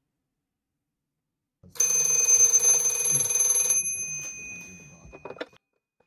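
A 1966 Monophone rotary telephone's bell ringing for an incoming call, one ring of about two seconds that dies away, followed by a few clicks as the handset is lifted from its cradle.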